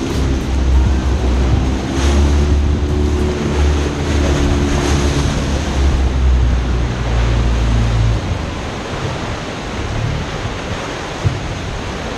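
Boat engine running at a steady low hum over rough, splashing sea water and wind on the microphone; about eight seconds in the engine drops away, leaving only the sloshing of waves.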